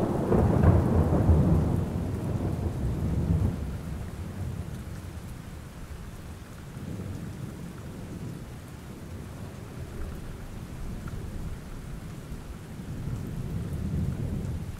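Thunderstorm: a long roll of thunder over steady rain, dying away after about four seconds. A second, softer rumble swells near the end.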